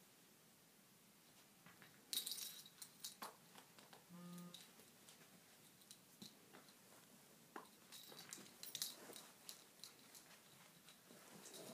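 Two dogs play fighting: faint mouthing and scuffling with scattered clicks and two louder bursts of rustling and clicking, and one brief low-pitched sound from a dog about four seconds in.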